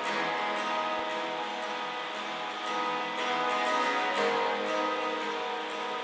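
Background music with held, ringing notes; a new lower note comes in about four seconds in.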